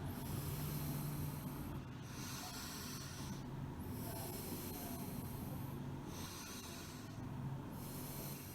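A person taking deep, forced breaths, air hissing in and out through the mouth. Each breath lasts about one to two seconds, with short pauses between them.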